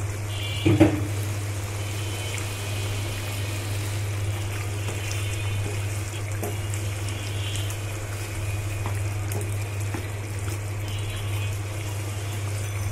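Chicken bhuna curry simmering in a pan: a steady bubbling hiss with small pops, over a constant low hum. A single sharp knock comes about a second in, and a wooden spatula stirs the thick sauce.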